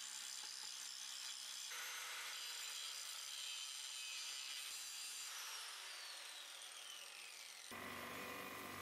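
Handheld angle grinder with an abrasive disc grinding down a steel bracket, a steady high hiss of disc on metal. About five seconds in it is released and winds down with a falling whine that stops near the end.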